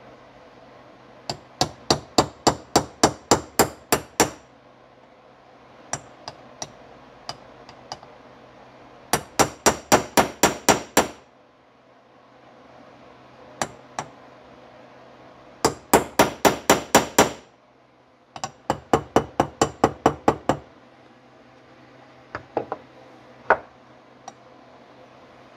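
Small ball-peen hammer tapping on a socket used as a driver, seating a small part into a Marvel Schebler carburetor body. Four quick runs of about ten sharp metallic taps each, some four or five a second, with a few single taps near the end.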